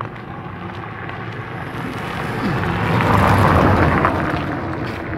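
A sedan car driving past close by on a concrete road: its tyre and engine noise swells, peaks about three and a half seconds in with a falling pitch, and fades as it goes by.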